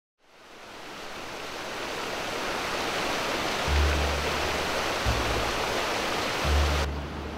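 River water rushing and foaming over a low weir, fading in as a steady hiss. About halfway through, deep sustained bass notes of background music come in. Near the end the upper hiss cuts away sharply.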